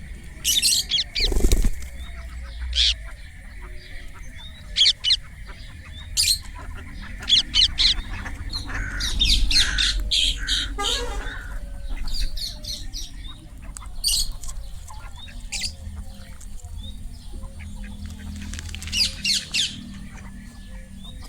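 Indian ringneck parakeet squawking: short, shrill calls, singly or in quick runs of several, repeated with pauses between.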